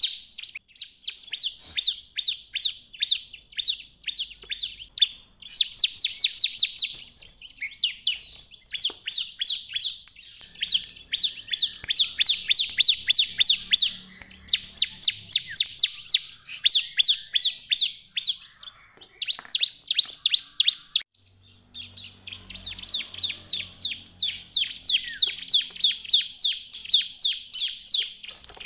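Ciblek (bar-winged prinia) singing hard: long runs of rapid, sharp, high chirps, several a second, broken by short pauses about a quarter of the way in and again about three-quarters of the way through.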